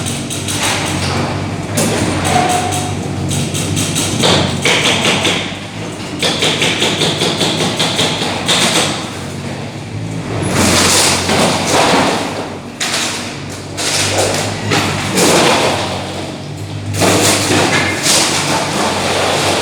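A heavy-equipment diesel engine runs steadily under repeated thumps, knocks and crashes of demolition work, with a quick run of knocks partway through.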